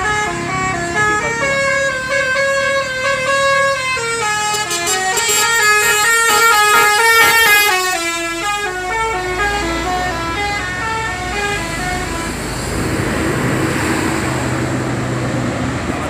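Sudiro Tungga Jaya coach's telolet horn, a set of musical air horns, playing a long winding melody of quickly stepping notes, several sounding at once. It peaks as the bus passes close and dies away about 11 seconds in, leaving the bus engine running as it pulls away.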